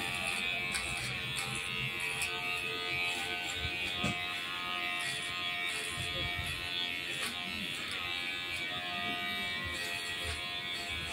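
Cordless electric hair clipper running steadily while it cuts short hair on the side and back of the head.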